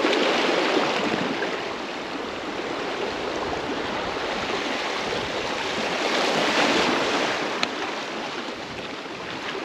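Seawater washing and rushing along a rocky shore: a steady noisy wash that swells and eases.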